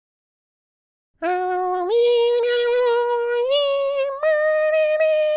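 A cartoon beaver character's high, childlike voice singing unaccompanied, starting about a second in, holding three long notes that each step higher than the last.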